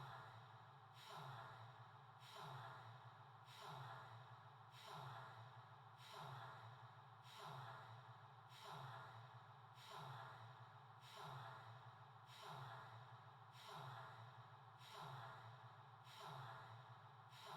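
Faint, regular breathing-like sound, one soft breath about every second and a quarter, over a low steady hum.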